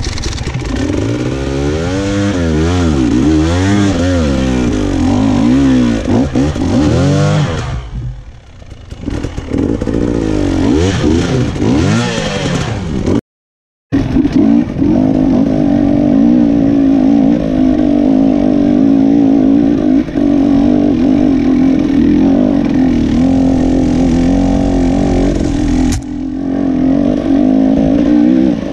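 Enduro dirt bike engine climbing a rutted hill trail, revving up and down in quick throttle bursts for about eight seconds, easing off briefly, then revving again. After a dropout of about a second it runs on at a fairly steady pitch.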